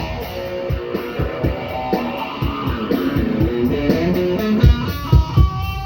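Instrumental band music: guitar picking a melodic line over bass and a steady, regular low beat, with no singing.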